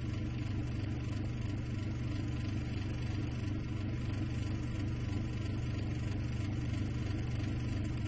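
Steady low spaceship engine hum used as a sci-fi sound effect, with a thin high whine above it, running evenly without change.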